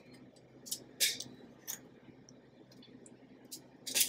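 Metal kitchen tongs clicking and tapping as sauced chicken wings are lifted from a glass bowl onto a ceramic plate: a few short, light clicks spaced out, the loudest near the end.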